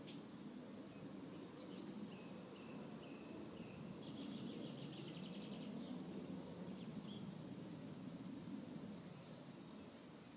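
Faint, scattered chirps of small songbirds with a brief rapid trill about four seconds in, over a low, steady background hum.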